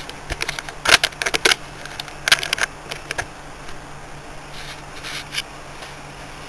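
Short clicking, scraping and rattling handling noises, clustered in the first three seconds with a few fainter ones about five seconds in, over a faint steady low hum.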